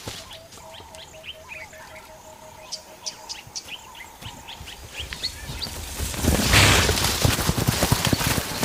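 Small birds chirping over a quiet bush background, with a repeated pulsing note in the first three seconds. About six seconds in, a loud rush of crashing noise and heavy thuds as a hippopotamus bursts out of the brush and charges across dry ground.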